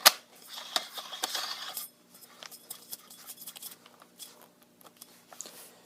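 Metal parts of an MP5-style .22 rifle being fitted back on by hand: one sharp click right at the start, a couple of seconds of scraping, then scattered small clicks and ticks.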